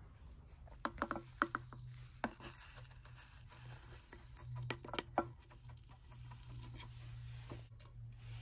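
Coarse granular potting grit poured from a scoop into a small pot, the grains pattering and rattling, with several sharp clicks of grit and tools against the pot.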